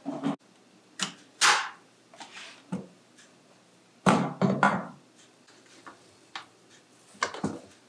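An electric meat grinder and glass bowls being set down and shifted on a stone kitchen countertop: a series of separate knocks and thuds, loudest about a second and a half in and at about four seconds. The grinder's motor is not running.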